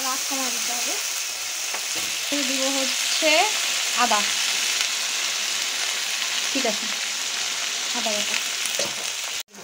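Sliced onions and green chillies sizzling steadily in hot oil in a wok, stirred with a plastic spatula.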